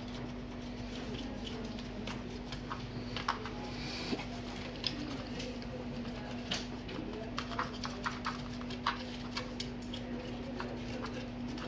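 Irregular small clicks and scratches of a laptop motherboard being scrubbed clean by hand, over a steady low hum. The cleaning targets moisture that is suspected of keeping the laptop from powering on.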